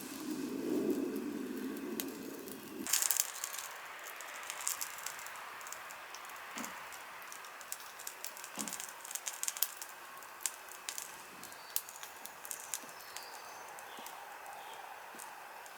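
Wood campfire crackling, with irregular sharp pops and snaps throughout. A steady low noise underneath stops abruptly about three seconds in.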